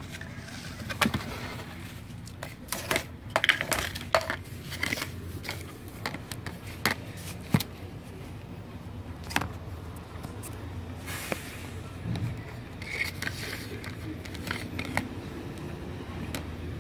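Irregular plastic clicks, taps and scrapes as parts of an Epson ink-tank printer's paper-feed mechanism are handled and fitted back in place.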